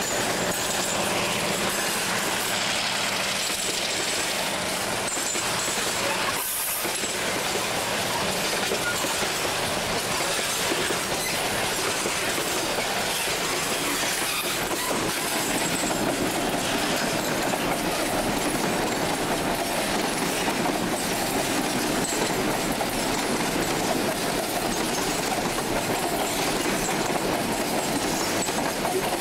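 Freight train's boxcars and hopper wagons rolling past close by: steel wheels on the rails making a loud, steady running noise that goes on without a break.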